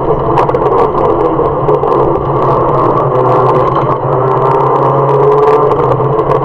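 Mazda MX-5 race car's four-cylinder engine and road noise heard inside the cabin, running steadily as the car slows from about 80 mph for a slow corner and starts to pull away again.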